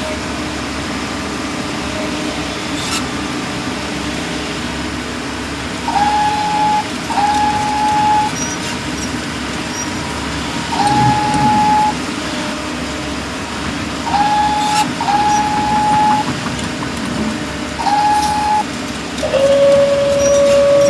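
Small electric motor of a toy construction machine whining in short bursts of about a second each, six times, over a steady hum; near the end a longer, lower-pitched whine.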